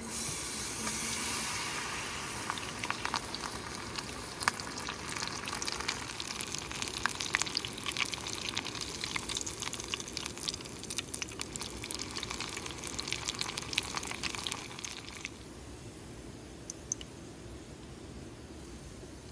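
Food frying in hot oil at a camp stove: a loud sizzle that starts suddenly, with many sharp crackles and pops, and stops abruptly about fifteen seconds in.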